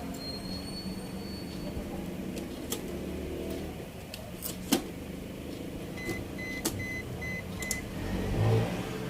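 Scattered sharp clicks over a steady low hum, with a short run of five quick evenly spaced electronic beeps about six seconds in.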